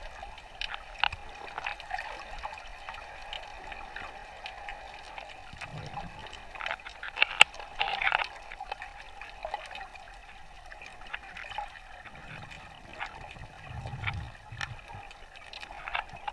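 Water gurgling and bubbling around an underwater camera while snorkeling. Many scattered sharp clicks and crackles, thickest about seven to eight seconds in, sit over a faint steady tone.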